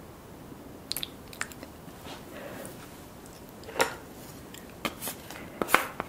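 Wooden chopsticks and a wooden spoon working through a bowl of saucy cheese noodles: scattered light clicks and wet squishes, the two loudest about halfway through and near the end.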